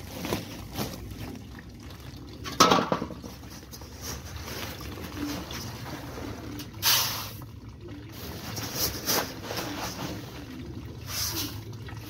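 Water splashing and dripping in a galvanised metal tub, with a few sharp knocks against the tub: the loudest about two and a half seconds in, then two more around seven and nine seconds.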